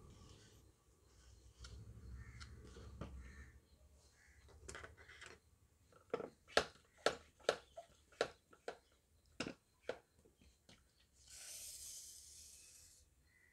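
Gear-shift linkage parts being handled and washed: a string of about a dozen sharp clicks and knocks at uneven spacing, then a hiss of spray lasting under two seconds near the end.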